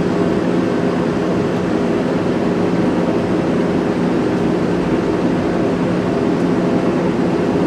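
Engine running steadily at an even pitch under load.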